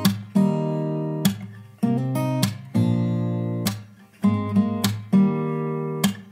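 Background music: strummed acoustic guitar chords, each strum ringing out and fading before the next.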